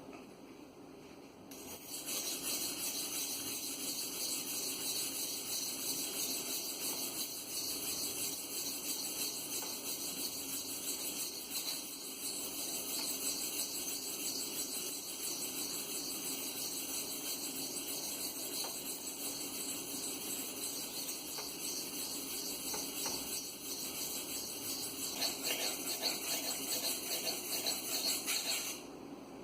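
Maxamet steel knife blade stroked steadily on a wet, cheap aluminum oxide sharpening stone, a fine scraping hiss. It starts about a second and a half in, grows a little louder over the last few seconds and stops abruptly just before the end.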